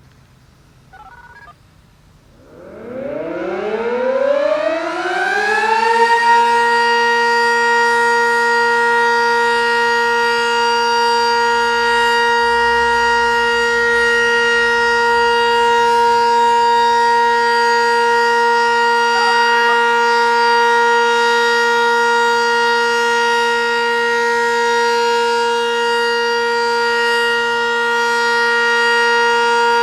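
Sentry 10V2T dual-tone electromechanical tornado siren winding up from a standstill about two and a half seconds in, its pitch rising for a few seconds, then holding one steady tone: the steady alert signal of a weekly test.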